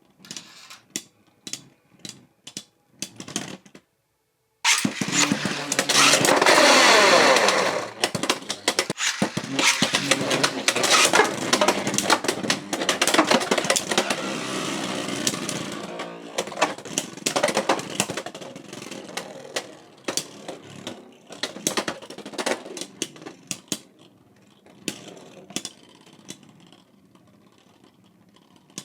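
Beyblade X tops launched into a plastic stadium about five seconds in, spinning and colliding in a loud, dense clatter that goes on for about fifteen seconds and dies down. Separate sharp clicks come before the launch and again near the end.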